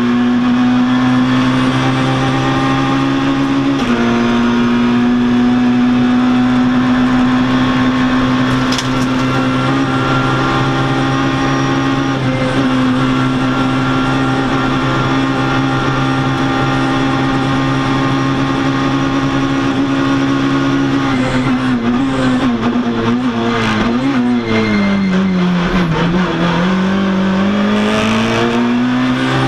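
Citroën rally car's engine heard from inside the cabin, running hard at high revs with a gear change about four seconds in. Near the end the revs waver and drop as the car slows for a corner, then climb again in a lower gear.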